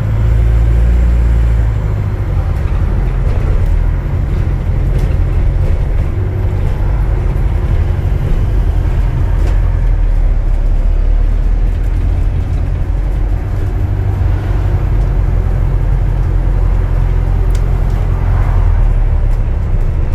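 Inside an Alexander Dennis Enviro400H MMC hybrid double-decker bus on the move: the drivetrain's steady low drone with road noise, and a few faint clicks.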